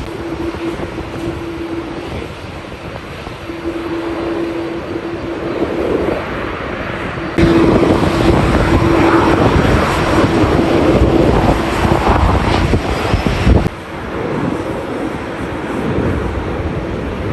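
Jet engines of a departing Qantas Airbus A330-300, a steady engine tone over a heavy rumble, with strong wind buffeting the microphone. The sound turns abruptly louder about halfway through and drops away suddenly near the end.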